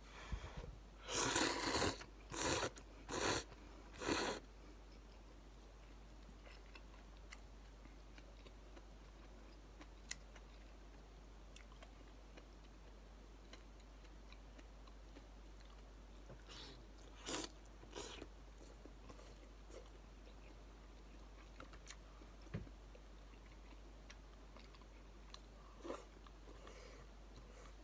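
A person slurping instant ramen noodles in four loud pulls about one to four seconds in, then quiet chewing with a few small clicks of eating.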